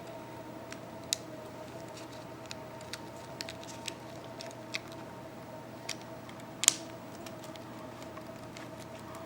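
Light, scattered clicks and taps of small tools and parts as an iPad's touchscreen flex cable is fitted to its connector, with one sharper click about six and a half seconds in. Under them runs a steady faint hum.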